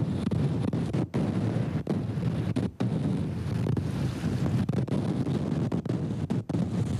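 Strong wind buffeting a hand-held camera's microphone: a loud, rough rumble that cuts out for an instant now and then.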